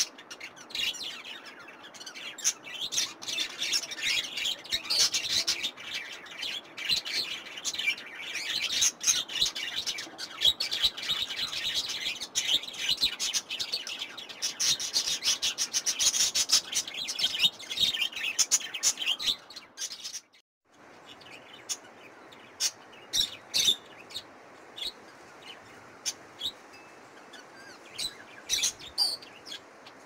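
A flock of small aviary parrots, budgerigars among them, chirping and chattering densely. After a sudden break about two-thirds of the way in, only scattered single chirps remain.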